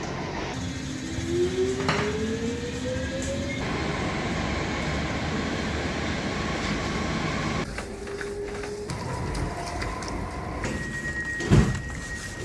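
Stockholm metro train running with passengers aboard: steady rumble of the car on the rails, with a rising whine in the first few seconds as the train gathers speed. A single loud knock sounds about a second before the end.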